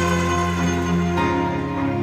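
Background music: slow held chords that change about a second in.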